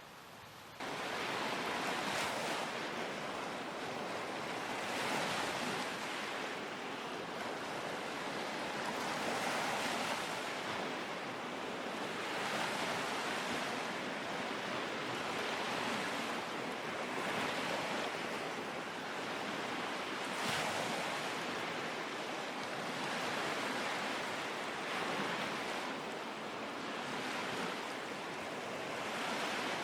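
Lake Huron waves washing and splashing on the shore, the rush swelling and fading every few seconds. It cuts in abruptly about a second in.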